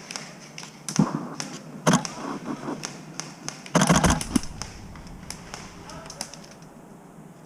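A run of sharp taps and clicks, with three louder thuds about one, two and four seconds in.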